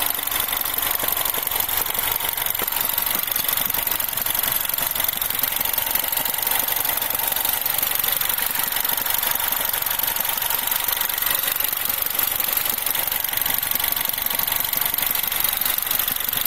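R56 Mini's 1.6-litre four-cylinder engine idling steadily at operating temperature, with a mechanical chatter that the owner takes for timing chain noise.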